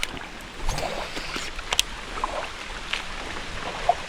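Creek water splashing and trickling, with scattered small splashes and clicks.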